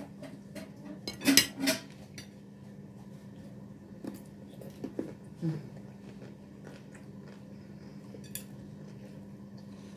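Cutlery clinking and scraping on a plate during a meal: a louder pair of clinks about a second and a half in, then a few lighter ticks, over a steady low hum.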